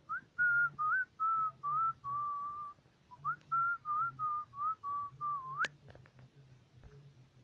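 A whistled tune in two phrases of short, clear notes, each phrase sliding gently down in pitch; the second phrase ends with a quick upward slide.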